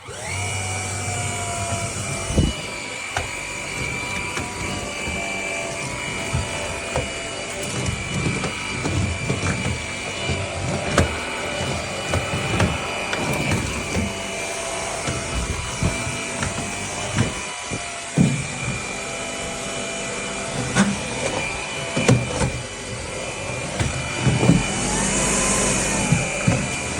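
Dreame Z30 cordless stick vacuum switched on and running, a steady high whine over a rushing noise. Irregular knocks and rubbing sound as it is worked.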